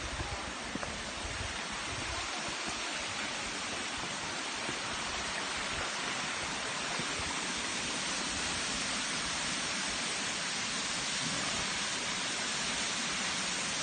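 Waterfall's rushing water: a steady, even hiss that grows slightly louder over the first few seconds.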